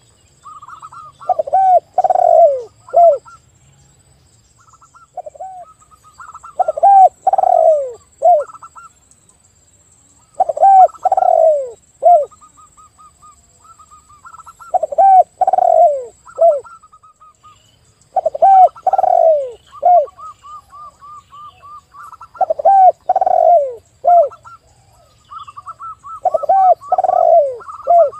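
Spotted dove and zebra dove cooing. A phrase of falling coo notes repeats about every four seconds, with quick runs of higher, short staccato coos between the phrases.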